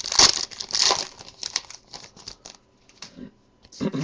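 A trading card pack wrapper crinkling and tearing as it is opened, loudest in the first second, then thinning to scattered rustles and small clicks of cards being handled.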